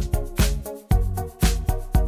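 Background music with a steady beat, about two strong beats a second over a bass line and chords.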